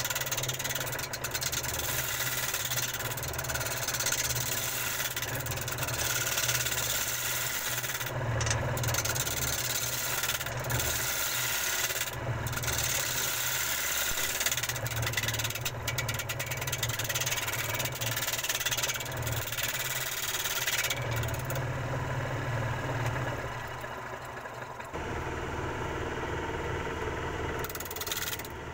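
Electric woodworking power tool running: a steady motor hum with a rough hiss of wood being cut or shaped above it. The hiss thins out about three-quarters of the way through while the motor keeps running.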